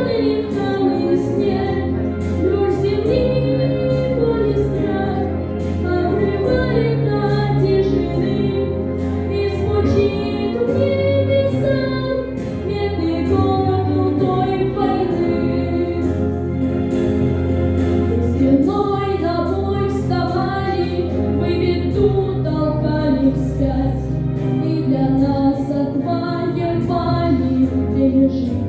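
Music: a song sung to a flowing melody over a steady instrumental accompaniment.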